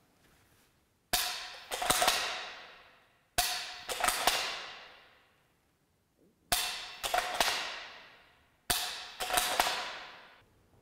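Bolt-action rifle dry-fire drill with a laser training cartridge: four sharp shot-like reports about two to three seconds apart, each fading out over a second or two, and each followed within a second by a couple of clacks of the bolt being worked for the next shot.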